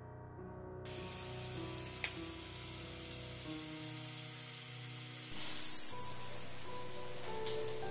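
A steady hiss that starts about a second in and gets louder about five seconds in, under soft background music with held tones.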